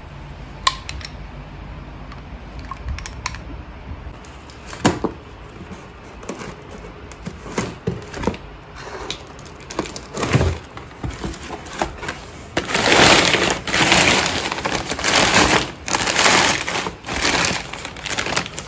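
Parts of a bio-fireplace kit and their packaging being handled: scattered sharp clicks and knocks, then several loud crunching, crackling bursts of about a second each near the end.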